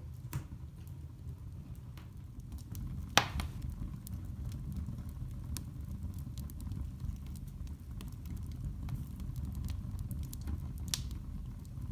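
Wood fire burning in a fireplace: a steady low rumble with scattered crackles and pops, the loudest about three seconds in and another near the end.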